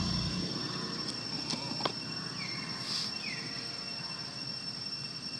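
Steady high-pitched insect drone, with a few faint clicks and two short falling chirps near the middle. A low rumble dies away just after the start.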